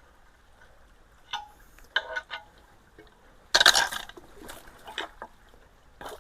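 Water splashing and sloshing in short bursts as debris is worked out of a clogged culvert, with a few knocks; the loudest splash comes about three and a half seconds in.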